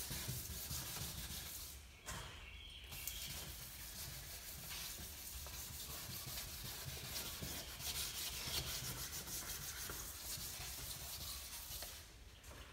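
Hand wet sanding of a plastic headlight lens with 2000-grit sandpaper: steady rubbing strokes, with a short break about two seconds in.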